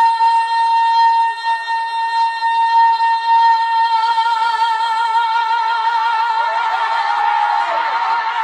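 A woman's solo singing voice, isolated from a live concert recording, holding one long high note: steady at first, then with a vibrato that grows wider from about halfway through.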